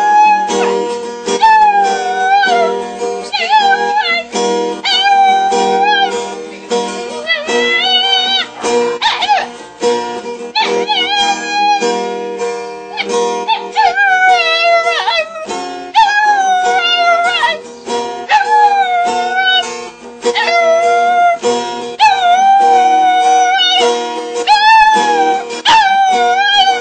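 A small dog howling along to a strummed acoustic guitar: a string of drawn-out howls, one after another, their pitch wobbling, over the steady guitar chords.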